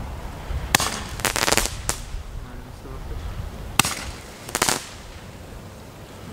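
Firework firing single shots at irregular intervals: three sharp pops, two of them followed by a short hissing burst as the shot flies.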